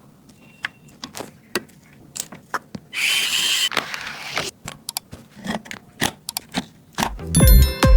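Computer parts being handled during a PC build: scattered sharp clicks and taps, with a short scraping rustle about three seconds in. Electronic dance music with a heavy beat comes in near the end.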